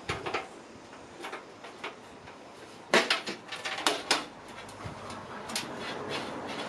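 Small metal tools and parts clinking and clicking, with the loudest cluster of sharp clicks about three to four seconds in, while a motherboard standoff is being unscrewed from the PC case.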